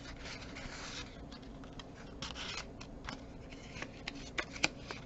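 Paper rustling and sliding as a small card is pushed into a paper envelope pocket, with a few light, sharp paper clicks in the second half.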